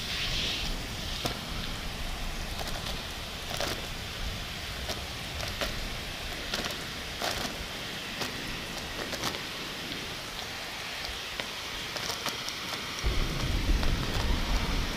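Heavy rain: a steady hiss dotted with sharp drop clicks. A low rumble starts about two seconds before the end.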